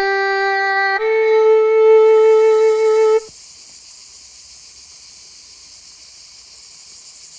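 Two long held notes on a wind instrument, the second a step higher, breaking off suddenly about three seconds in. Beneath and after them, a steady high chirring of crickets runs on more quietly.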